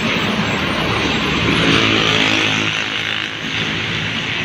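Bus passing close by on the road: engine and tyre noise swelling to a peak about two seconds in, then easing off.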